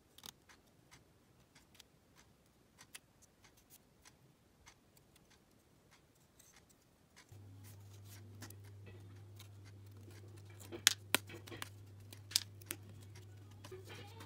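Small clicks and taps of laser-cut plywood puzzle parts being handled and fitted together, then a few sharper snaps as parts are pressed out of the plywood sheet. A low steady hum starts about halfway through.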